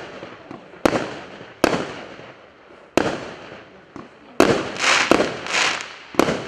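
A 48-shot, 0.8-inch firework cake firing single shots, each a sharp bang with a fading echo, a second or so apart. In the last third, the bangs come closer together and each is followed by a longer swell of hissing noise.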